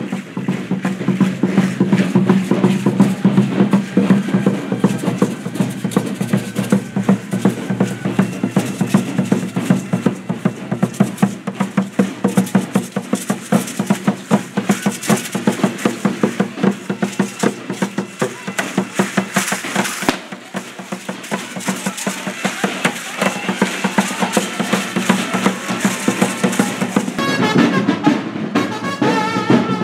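Percussion for an Aztec-style (danza azteca) dance: a fast, steady drumbeat with shaking rattles, dipping briefly about two-thirds of the way through.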